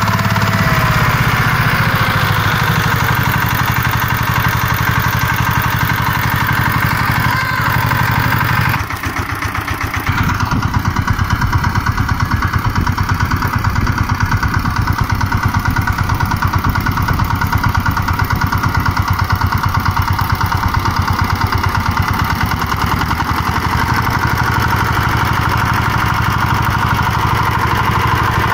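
VST 135 DI Ultra power tiller's single-cylinder diesel engine running steadily under load with a rapid, even chugging as it tills wet paddy ground. The sound dips briefly about nine seconds in, then carries on a little louder.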